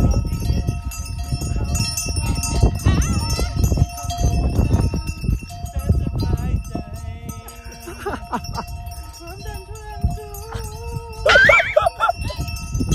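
Bells on camel harnesses jingling and ringing steadily as the camels walk, with scattered knocks. About eleven seconds in there is a brief, loud, wavering call.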